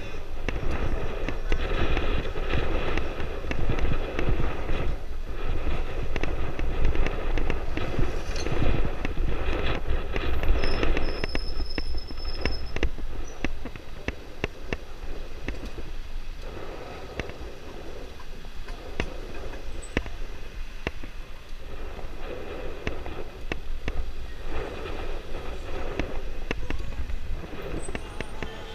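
Dirt bike engine running at low speed, with many short crackles and a steady low rumble of wind on the camera microphone; it is louder in the first half and eases off after about thirteen seconds.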